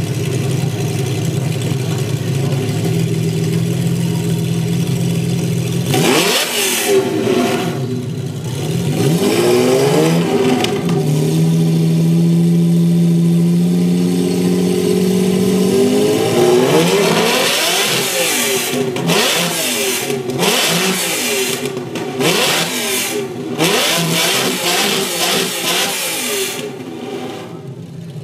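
Lamborghini Countach V12 exhaust, idling steadily, then revved about six seconds in. It is held at raised revs for a few seconds, then blipped again and again with quick rises and falls in pitch, and drops back near the end.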